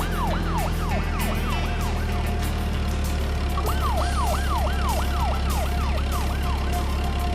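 Siren sound effect: quick rising-and-falling whoops, about three a second, in two runs with a short gap, over a steady low engine-like hum.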